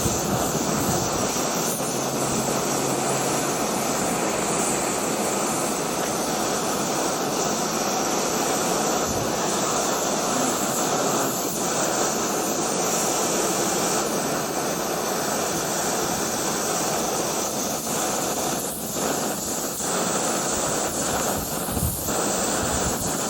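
BRS-3000T canister stove burner running full under a titanium pot: a steady jet-like hiss of the flame that sputters a little, which is put down to the wind.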